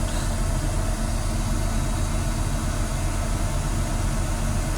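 GMC Savana van's engine idling steadily, a low even hum.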